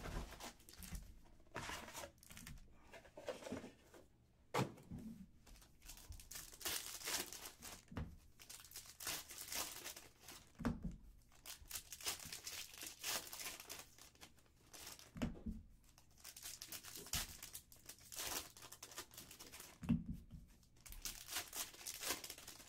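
Foil packs of Panini Contenders Football trading cards being torn open and crinkled by hand, in irregular bursts of tearing and rustling.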